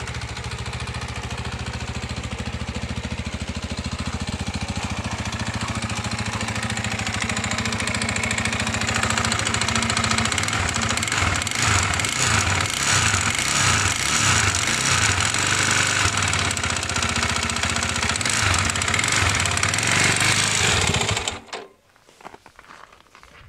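Irbis TTR250's single-cylinder four-stroke engine running with a fast, heavy knock, a little louder in the middle; the knock is put down to the piston. The engine stops suddenly near the end.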